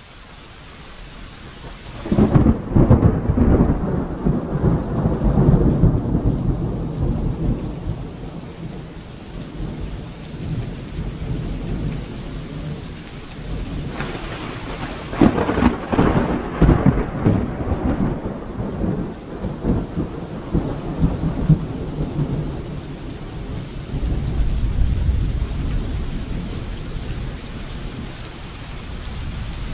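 Thunderstorm: steady rain that swells over the first couple of seconds, with two loud thunderclaps, one about two seconds in and one about halfway through, each rolling on into several seconds of crackling rumble, and a lower rumble of thunder near the end.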